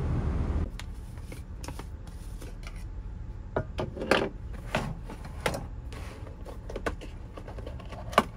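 A steady low rumble that cuts off abruptly, followed by scattered light clicks and knocks of small objects being handled in a small room.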